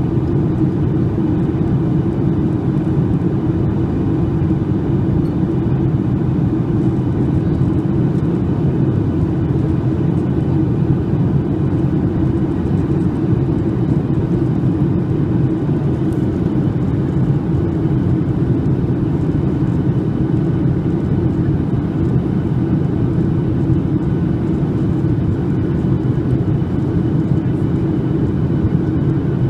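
Steady cabin noise of a Boeing 737-800 in flight: its CFM56 jet engines and the airflow over the fuselage heard from a window seat over the wing. It is a loud, even low rumble with faint steady whining tones above it.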